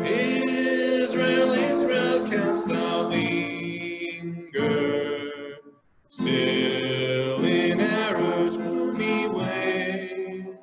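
Group of people singing a hymn together in phrases, with short breaks between lines, the longest about six seconds in.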